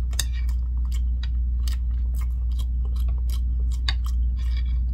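A person chewing a mouthful of tteokbokki, spicy Korean rice cakes, with close-up wet mouth clicks and smacks scattered irregularly, over a steady low hum.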